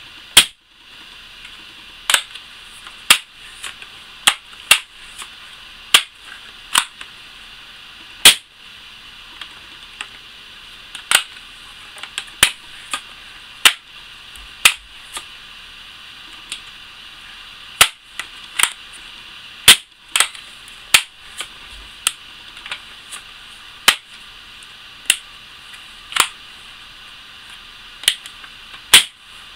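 Daisy Powerline 880 multi-pump air rifle being worked through a test run after reassembly: a string of sharp snaps and clicks from its pump lever, bolt and trigger action and air discharge, irregularly spaced about one to two seconds apart, some of them very loud.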